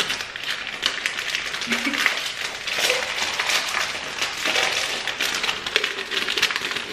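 Plastic bag of Pedigree dental-stick dog treats crinkling as it is handled and opened, then the sticks tipped out and clattering into a jar in a run of small clicks.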